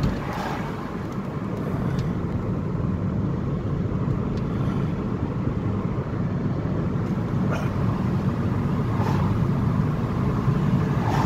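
Steady rumble of a moving car's engine and tyres, heard from inside the cabin.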